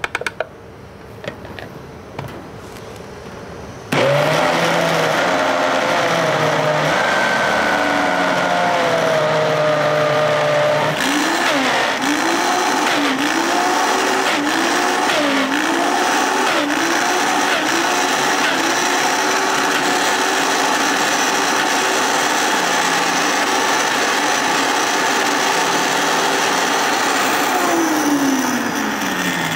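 Countertop blender motor starting up about four seconds in and running at high speed through a thick mix of beans and water, grinding them into a paste. It steps up in speed partway through, its pitch dipping and recovering again and again as the load bogs it down and frees up, then it winds down with a falling pitch near the end.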